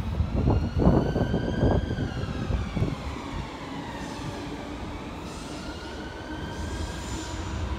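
Electric multiple-unit train's traction motors whining: a cluster of tones that rise, fall away, then climb again, over a low rumble that fades in the first three seconds.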